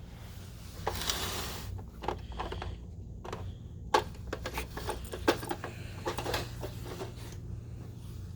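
A dog working at a treat puzzle box with its mouth, chewing and biting at the box and lid: scattered clicks and knocks, with a short hiss about a second in.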